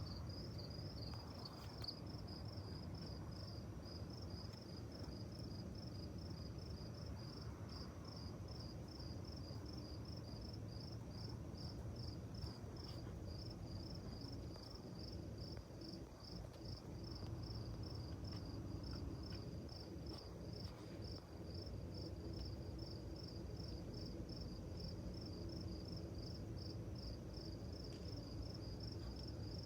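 Crickets chirping in a steady, evenly spaced run, over a faint low drone in the background that sounds like a generator in the sky.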